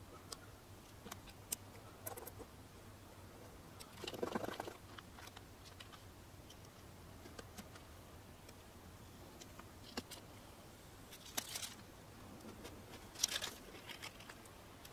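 Faint rustling and crinkling of transfer paper being peeled slowly off freshly laid vinyl taillight film, with scattered light ticks and a few brief louder rustles.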